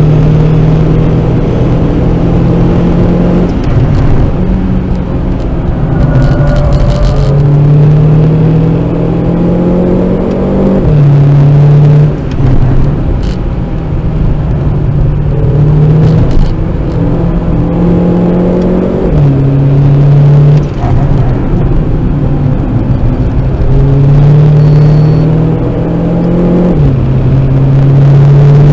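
Renault Clio RS 1.6-litre turbo four-cylinder engine under hard acceleration on a race circuit, heard from inside the cabin. The revs climb and drop back several times as it shifts gear, over steady road and wind noise.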